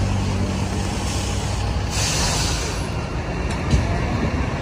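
Steady low rumble of an idling truck engine. About two seconds in comes a short hiss of released air, and near the end a single sharp click.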